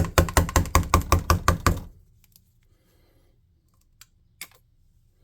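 A bottle of white hobby paint being shaken: a fast, even run of about a dozen knocks in the first two seconds, then two faint clicks around four seconds in.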